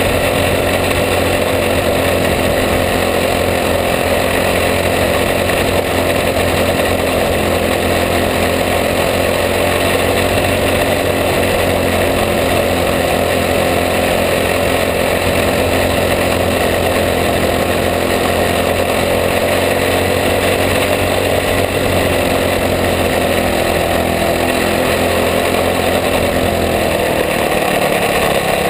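Racing cage kart's engine running hard at steady high revs, heard from on board, with the revs falling near the end.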